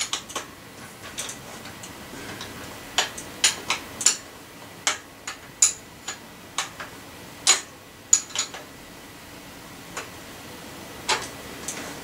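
Irregular sharp metallic clicks and taps of a spanner working the 15 mm axle nuts on a mountain bike's front wheel.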